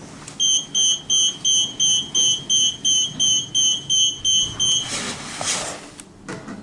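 Lift car's electronic beeper sounding a quick run of about thirteen short, high, even beeps, nearly three a second, which stop about five seconds in and give way to a brief rustle.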